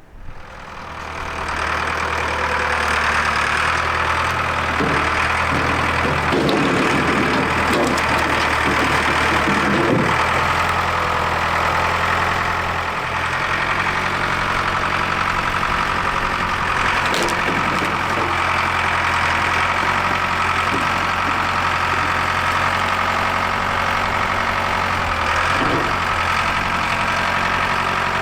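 An engine running steadily, coming up in level over the first couple of seconds, with a few knocks and clunks over it.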